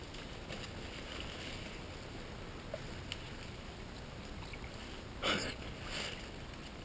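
Footsteps wading through water, with two short splashing steps near the end, the first the louder.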